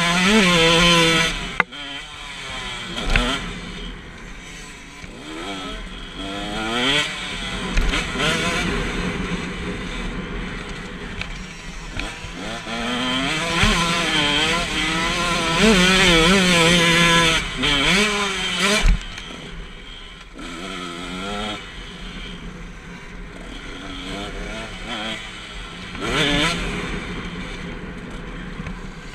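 KTM 125 SX two-stroke single-cylinder motocross engine ridden hard, its pitch climbing and dropping over and over through the throttle and gear changes. Two sharp knocks stand out, one near the start and one about two-thirds of the way through.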